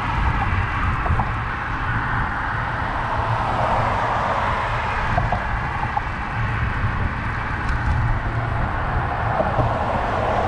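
Steady city street noise heard from a moving bicycle: car traffic over a continuous low rumble.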